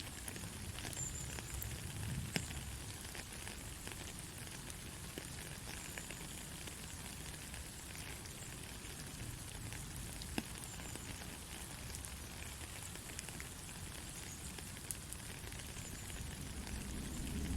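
Soft rain falling steadily, an even hiss over a low rumble with scattered sharp drop ticks. The sharpest ticks come about two seconds in and again about ten seconds in.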